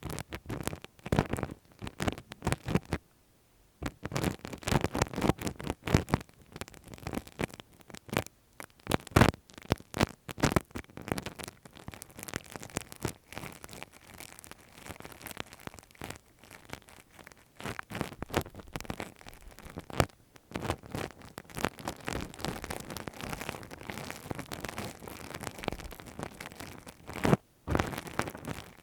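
Close-miked ASMR ear-cleaning sounds: a tool scratching and rubbing against the microphone, giving dense, irregular crackles and scrapes, with brief pauses about three seconds in and near the end.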